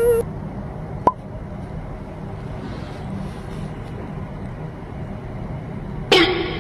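Steady low background hum, with a single sharp click about a second in and a short pitched sound that falls slightly near the end.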